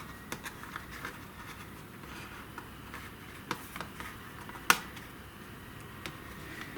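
Small clicks and taps of a screwdriver and screws on a laptop's plastic case as the case screws are undone, with one sharper click near the middle.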